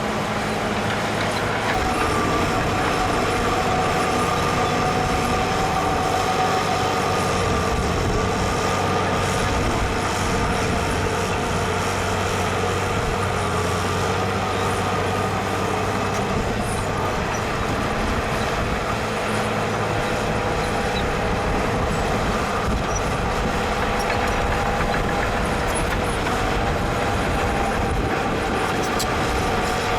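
Heavy diesel earthmoving machinery running steadily: a continuous engine drone with a higher steady whine above it.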